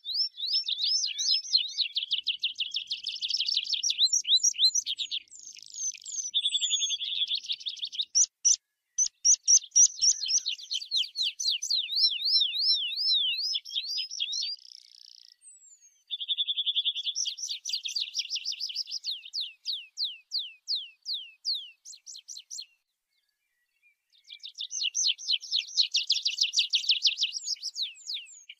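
Tree pipit singing: song phrases of fast repeated notes and trills, several running into a series of falling, drawn-out notes, with short pauses about halfway through and again about two-thirds through.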